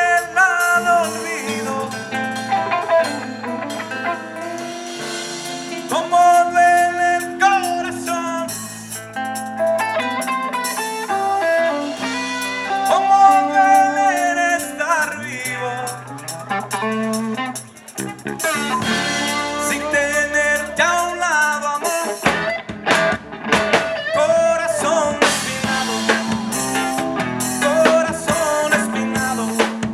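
Band music: a blues-rock passage led by guitar over a drum kit, with no sung words recognised. A run of drum hits comes in past the middle.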